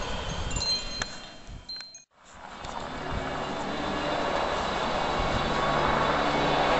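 Wind chimes ringing over a steady engine drone, cut off by a moment of silence about two seconds in. After the silence, the drone of a gypsy moth spraying aircraft's engine comes back and grows steadily louder.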